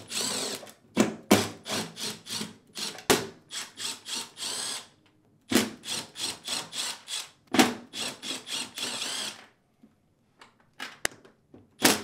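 Cordless drill-driver with a T15 Torx bit backing screws out of a dishwasher's door panel, the motor whirring in several short runs with brief pauses between.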